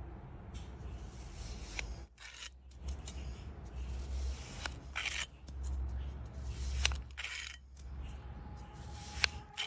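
Kinetic sand being squished and scraped in a few separate strokes over a low steady hum.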